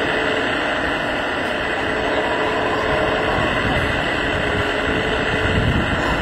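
Radio-controlled Wedico CAT 345D model excavator's hydraulic pump whirring steadily as the boom and sand-filled bucket are worked, with voices in the background.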